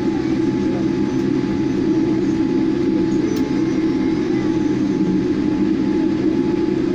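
Boeing 787 Dreamliner cabin noise while taxiing, heard from inside the cabin: a steady low rumble from the engines at low power and the rolling airliner, with a thin steady whine held above it.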